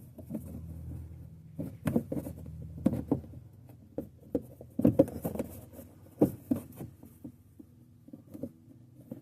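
Hands clipping a plastic headlight cover back into place: scattered plastic clicks, knocks and rustling as its tabs are pushed and snapped in.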